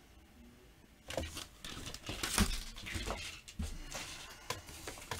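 Rustling and crinkling of material being handled, with a few soft bumps, starting about a second in.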